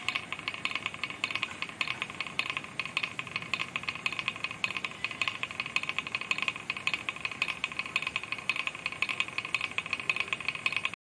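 Wooden pecking-chickens toy in use: the carved birds' heads tap rapidly against the wooden board as the weighted ball swings round, a fast, steady clatter of wood on wood.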